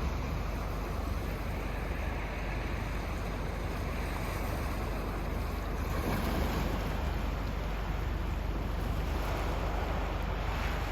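Sea waves washing onto the shore: a steady rush of surf that swells about six seconds in and again near the end, with a low rumble of wind on the microphone.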